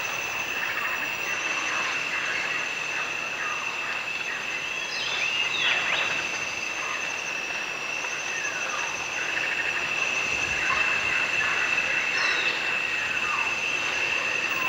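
Tropical forest ambience: a steady high-pitched insect drone with scattered short bird calls.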